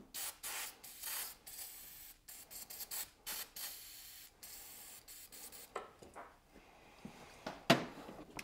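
Aerosol brake cleaner sprayed onto a motorcycle's ABS brake-line fitting in several short hissing bursts, cleaning off dirt before the fitting is unbolted. A sharp knock comes near the end.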